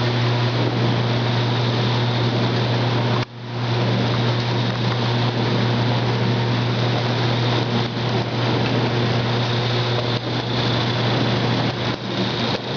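Potato washing machine running: a steady low electric-motor hum under a continuous rushing, rattling noise. The sound briefly drops out about three seconds in, then carries on as before.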